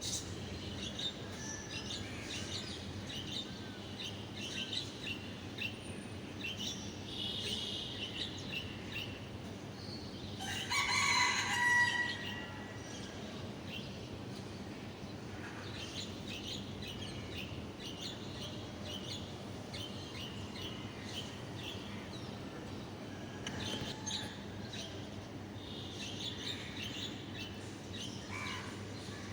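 Birds calling: frequent short, high chirps throughout, and one louder, longer call of about a second and a half just after ten seconds in.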